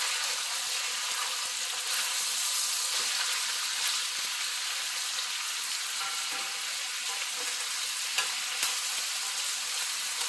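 Chicken thighs frying in hot oil in a stainless steel pan, a steady sizzle. A couple of sharp clicks come about eight seconds in as the pieces are turned over with tongs.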